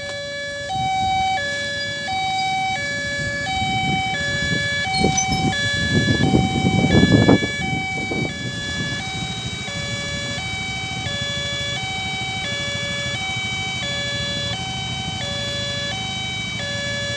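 A railway level-crossing warning bell sounds its electronic two-tone ding-dong, alternating high and low about one and a half times a second: the signal that a train is approaching and the barriers are down. A nearby vehicle's rumble swells and fades about six to eight seconds in.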